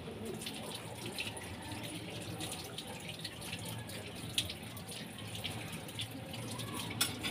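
Milkfish and bitter gourd paksiw simmering in an aluminium wok: a steady bubbling with a dense, irregular light crackle. A sharper click comes about four seconds in and another near the end.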